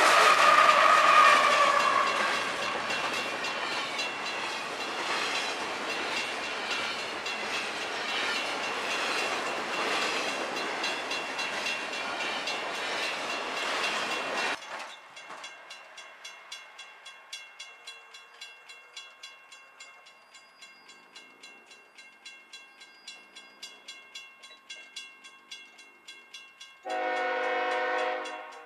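A freight train rolling past a grade crossing, with loud rumble and clatter of wheels and railcars, until an abrupt cut about halfway. Then a railroad crossing bell dings steadily, a little under twice a second. Near the end, the horn of the approaching train's lead locomotive, a CSX GE ES44AH, sounds loudly.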